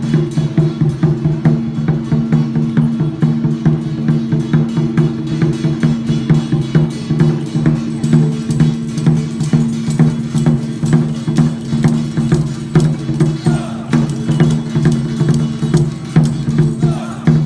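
Traditional temple-festival percussion: drums and clacking wood-block beats in a fast, steady rhythm over a steady low drone.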